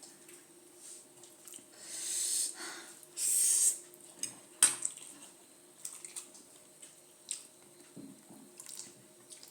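Mouth sounds of eating very spicy noodles: two hissing slurps or sharp sucked-in breaths, the second and louder about three and a half seconds in. Scattered small clicks of utensils and chewing come after them.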